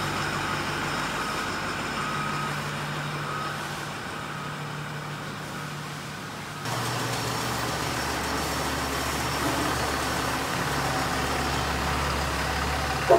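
Truck engines idling with a steady hum, which turns to a deeper rumble about seven seconds in. A brief sharp knock sounds right at the end.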